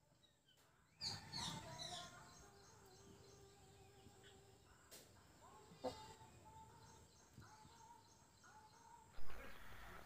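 Small birds chirping and calling in the background, starting about a second in, with a sudden loud burst of noise near the end.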